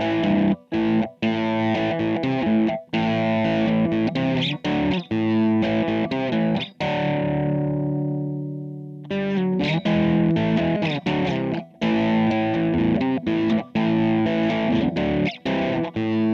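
Rock background music played on distorted electric guitar: chopped, rhythmic chords with short abrupt stops. About halfway through, one chord is left to ring out and fade, and then the riff starts again.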